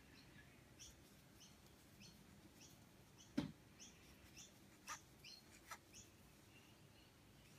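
Near silence: a bird chirping faintly, with short high chirps every half second or so, and a few soft clicks, the loudest about three and a half seconds in.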